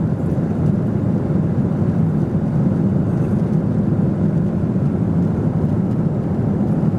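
Steady cabin noise of a Boeing 777-300 airliner in flight: an even, low rushing drone of engines and airflow that does not change.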